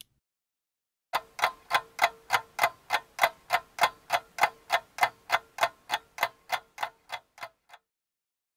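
Clock ticking, about three ticks a second, with a faint steady tone under the ticks; the ticking starts about a second in, grows fainter and stops shortly before the end.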